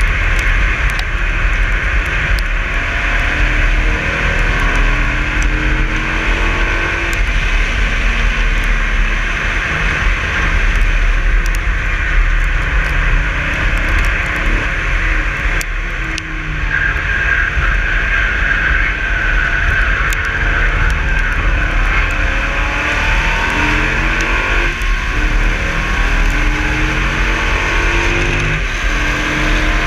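2016 Dodge Viper ACR at track speed, heard from a camera low on its front splitter: heavy wind and road rumble on the microphone, with its 8.4-litre V10 repeatedly rising in pitch as it pulls through the gears. The sound eases briefly about sixteen seconds in, then builds again.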